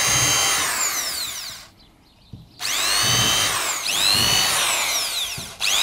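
Electric drill with a small bit boring pilot holes into a plastic beehive box. Its motor whine rises and falls with the trigger. It stops for about a second about two seconds in, runs again for about three seconds, and starts up once more near the end.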